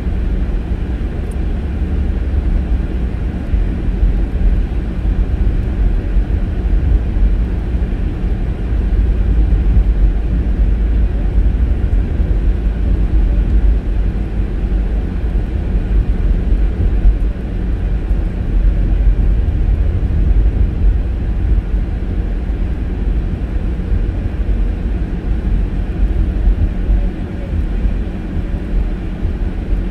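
Road and tyre noise inside a moving car's cabin: a steady low rumble with the engine running, the car driving on a rough road.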